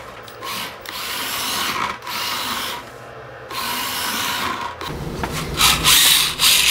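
GPToys S918 Drift Shark mini RC car's 130-size brushed electric motor and four-wheel-drive drivetrain whirring in short bursts of throttle as the car drifts over low-pile carpet. Near the end a louder, fuller noise takes over.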